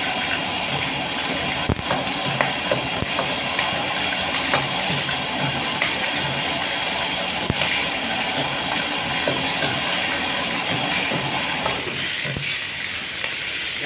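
Prawns sizzling in hot oil in a wok while a steel ladle stirs and scrapes them, with a few sharp knocks of the ladle against the wok.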